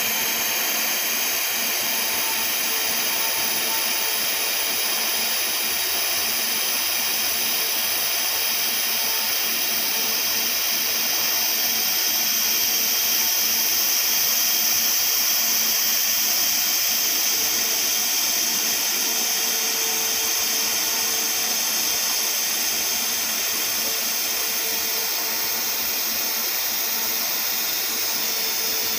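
TIG welding arc on carbon steel pipe, a steady high-pitched hiss with a faint hum beneath it, running without a break.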